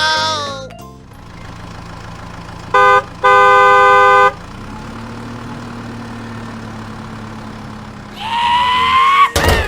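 Cartoon vehicle horn sound effect honking twice, a short toot then a longer one, over a low steady engine hum. Sliding pitched cartoon sound effects come at the start and again near the end.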